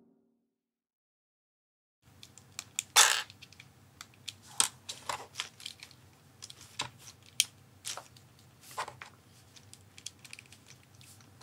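LEGO bricks being handled and snapped together by hand: a run of small, sharp plastic clicks at an irregular pace, starting about two seconds in, with one louder clatter about three seconds in.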